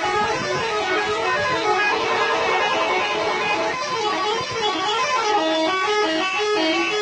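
Music with a fast melody of short electric-guitar notes stepping up and down without a break.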